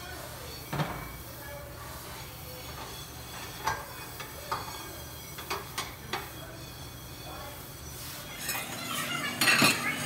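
Ceramic dinner plates clinking and knocking against one another in a commercial dish-pit sink as they are rinsed under a pre-rinse spray, with a steady hiss of spraying water. The clinks come singly every second or so, with a louder clatter of plates near the end.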